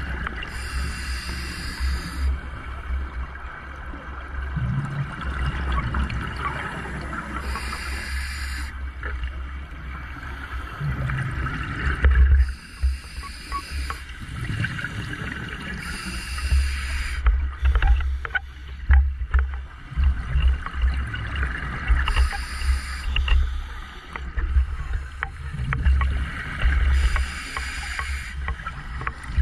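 Underwater sound of a scuba diver breathing through a regulator, heard through the camera's housing: a burst of hiss and bubbles about every five to six seconds, over a steady low rumble of water.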